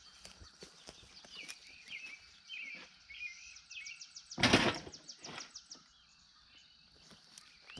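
Birds chirping and singing throughout. About halfway through comes one short, loud clatter as a bundle of steel T-posts is set down on the ground.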